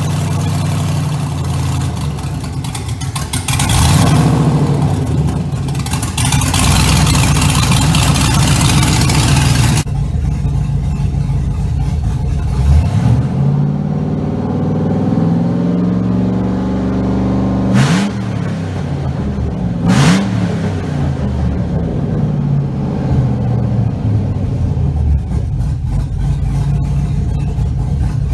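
Chevrolet 5.3-litre LS V8 running loud. After a cut it holds a raised speed near 2,200 rpm, is blipped sharply twice a couple of seconds apart, then drops back and settles to a steady idle around 800 rpm.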